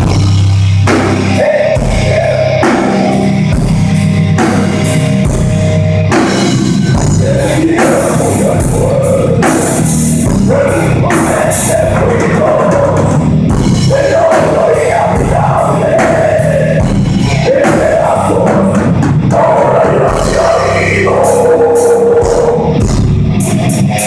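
Metal band playing at full volume during a sound check: drum kit hits with electric guitar and bass.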